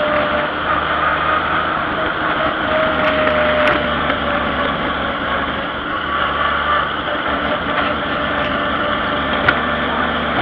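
Farm tractor engine running steadily while the tractor drives along a road, with a sharp click near the end.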